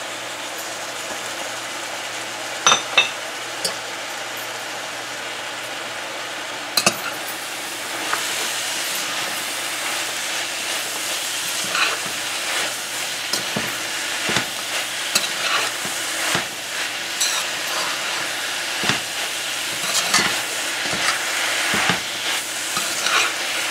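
Sliced breadnut (catahar) sizzling as it fries in curry paste in a heavy metal pot, with a few sharp spoon clicks. From about eight seconds in it is stirred and tossed with a large metal spoon, which scrapes and knocks against the pot over a louder sizzle.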